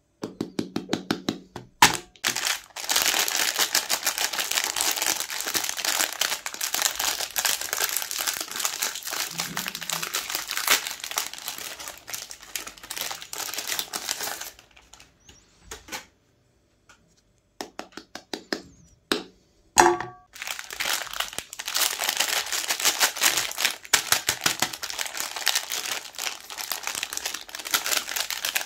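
Metallised plastic wrappers of Magnum ice cream bars crinkling and tearing as they are peeled open by hand, with a quieter pause about halfway through.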